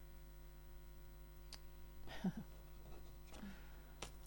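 Quiet room tone with a steady low electrical hum, broken by a couple of faint clicks and a short soft noise about two seconds in.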